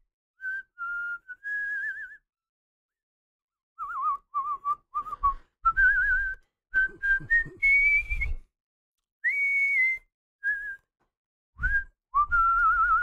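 A man whistling a tune to himself in short phrases, one note at a time with a wavering pitch, breaking off for a couple of seconds between phrases.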